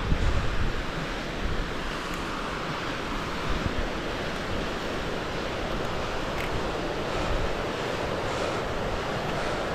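Wind blowing over the microphone, a steady rushing noise that is gustier in the low end near the start.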